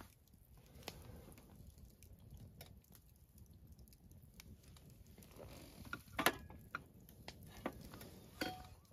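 Dishes and eating utensils clinking and knocking: soft ticks at first, then a few sharp knocks in the last three seconds, the last with a short ring.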